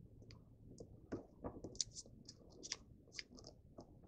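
Origami paper crinkling and rustling faintly as it is folded and creased by hand, in short irregular crackles.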